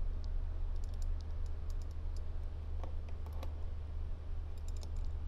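Scattered light clicks and taps of handling on a workbench strewn with small metal fittings, over a steady low hum.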